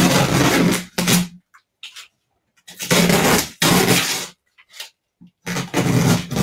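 Masking tape being peeled off a chalked plastic tuff tray, ripping with a buzzing rasp in four pulls: a long one, a short one just after, a longer one in the middle and another near the end, with silent pauses between.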